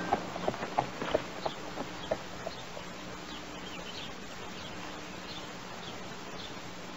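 Birds chirping faintly in a quiet outdoor soundtrack ambience, over a steady low hum. A few knocks die away over the first two seconds.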